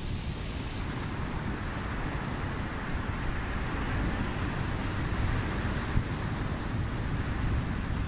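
Sea surf breaking and washing over boulders on a rocky shore, a steady rush of foaming water, with wind rumbling on the microphone.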